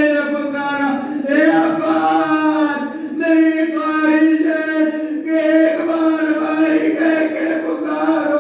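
A man chanting through a microphone in long, held melodic phrases of about two seconds each: a majlis orator's sung recitation.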